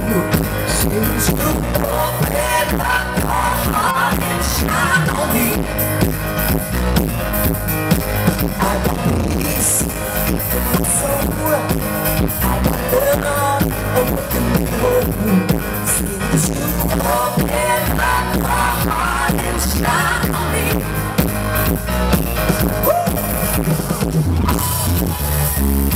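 Live dance-pop music from a band with keyboards and drums, with a steady beat and a woman singing the lead.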